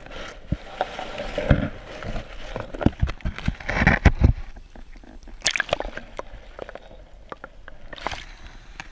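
Canal water sloshing and dripping around a GoPro as it is moved under and up through the duckweed-covered surface, with irregular splashes and knocks, loudest about four seconds in.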